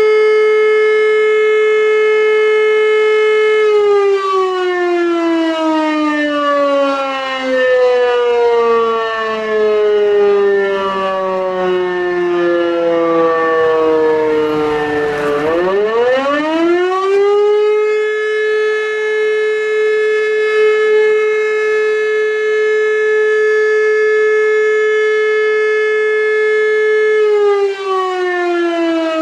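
E57 motor-driven siren sounding the fire-brigade alarm to call out the volunteer fire brigade. A steady wail slowly winds down in pitch as the rotor coasts. About 16 s in it swings quickly back up to a steady tone, then starts winding down again near the end.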